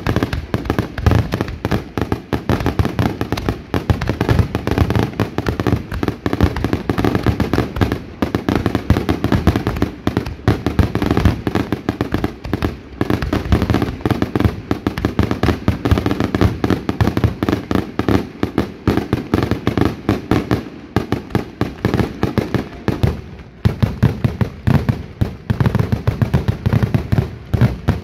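A continuous rapid barrage of fireworks, with bangs and cracks following one another many times a second and a brief lull about twenty-three seconds in.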